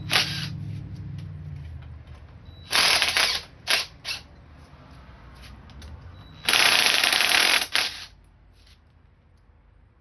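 Impact wrench hammering 10 mm triple clamp bolts loose: a short burst about three seconds in, two brief blips right after, then a longer burst of over a second past the middle.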